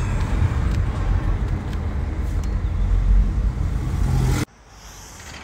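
A car driving, heard from inside the cabin: a steady low rumble of engine and road noise. It cuts off abruptly about four seconds in, giving way to a much quieter room sound.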